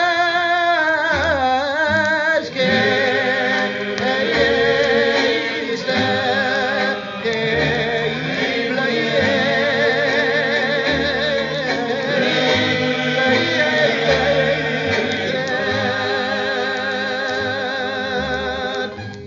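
Cape Malay vocal music played from a vinyl LP: voices singing long, ornamented notes with heavy vibrato, mostly unaccompanied. The singing stops right at the very end.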